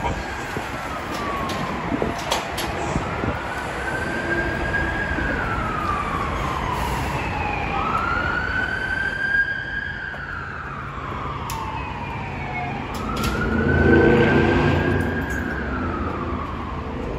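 Emergency vehicle siren wailing, its pitch rising and falling slowly about four times. A louder rumble swells and fades near the end, and there are a few sharp knocks.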